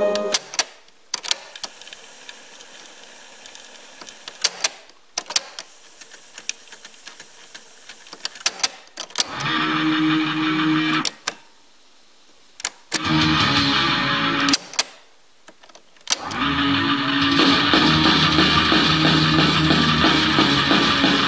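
Teac A-170 cassette deck's mechanical piano-key transport buttons clicking as they are pressed, with the tape playing back guitar music in three stretches that start and stop on the key clicks, the longest in the last few seconds.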